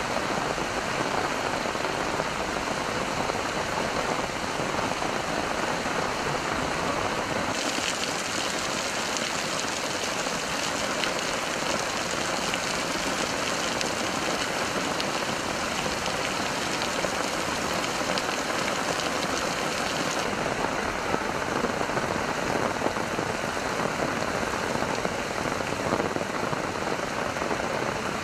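Heavy downpour of rain falling on flooded streets: a steady, even hiss. The hiss turns brighter about a quarter of the way in and duller again about two-thirds of the way through.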